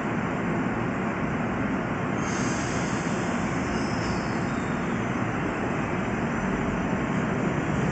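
Keifuku Randen Mobo 101-series tram car setting off from the station, with steady electric running noise. A thin high-pitched hiss joins about two seconds in, and the sound grows louder near the end as the car comes past.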